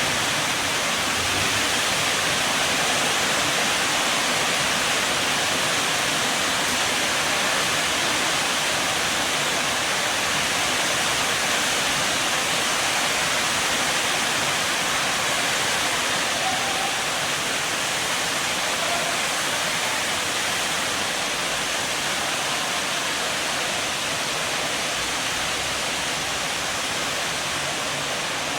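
Heavy rain shower falling steadily, an even, unbroken rush of noise.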